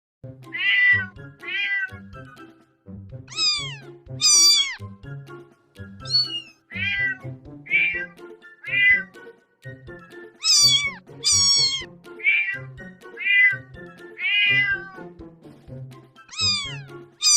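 A string of domestic cat meows, about one a second, each rising then falling in pitch; several are higher and louder than the rest. Background music plays underneath.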